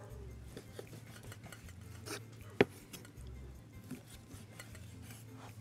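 A few sharp clinks and knocks of kitchen utensils while skewers are loaded with meat, the loudest about two and a half seconds in. Quiet background music with a slow pulse plays underneath.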